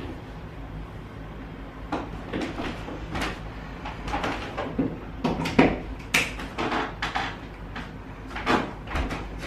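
Irregular light knocks and clicks, a dozen or so, the loudest about halfway through: furniture being handled and moved about, with an arc floor lamp being repositioned and switched on.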